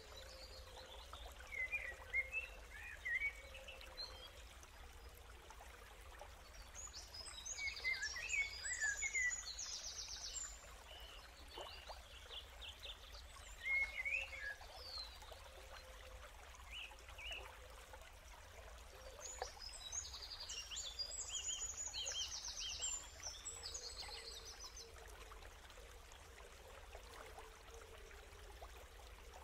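Birds chirping in short bursts of song every few seconds over a faint steady hiss like running water.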